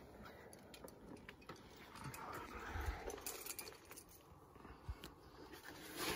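Faint, scattered metallic clinks of climbing gear: carabiners, cams and nuts racked on a harness knocking together. A brief low rumble comes nearly three seconds in.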